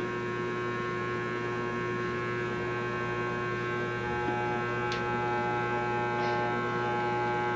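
Electric hair clippers running with a steady buzzing hum while cutting a child's hair, with two faint ticks in the second half.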